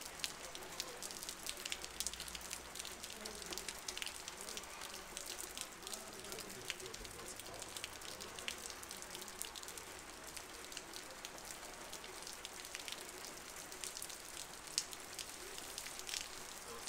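Downpour on a street: a steady hiss of heavy rain, thick with the sharp ticks of drops splashing close by.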